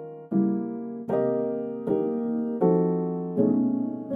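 Background music: soft keyboard chords struck about every three-quarters of a second, each fading before the next.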